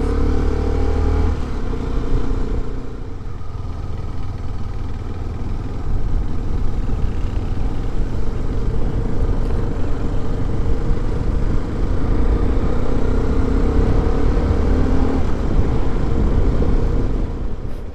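Motorcycle engine running under way over heavy low rumble, its engine note fading about a second in and returning later.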